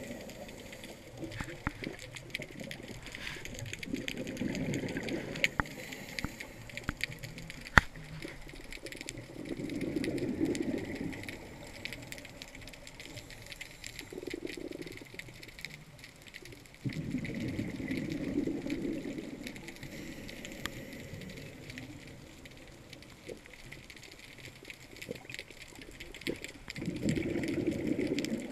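Underwater sound of scuba exhalation bubbles gurgling out of a regulator in bursts every few seconds, over a faint steady crackle of small clicks. One sharp click about eight seconds in.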